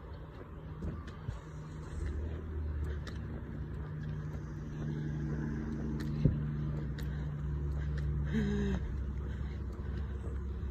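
A steady low motor hum that grows louder about two seconds in, with a sharp click about six seconds in and a brief chirp near the end.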